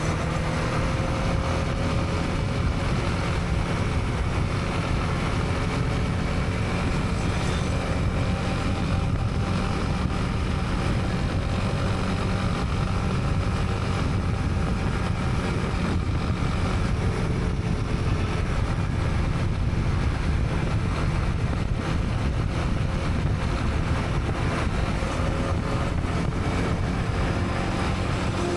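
Honda CB300R's single-cylinder engine running steadily while riding, with road and wind noise. The engine pitch drifts gently up and down with small throttle changes, and there are no sharp events such as horns or impacts.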